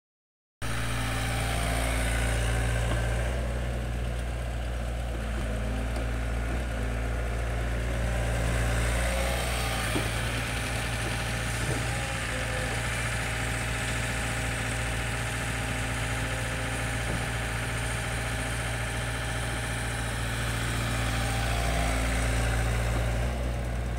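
LOVOL FR80E excavator's diesel engine running steadily as the machine digs and swings wet soil, swelling a little louder at times as the hydraulics take load. A couple of brief knocks come midway.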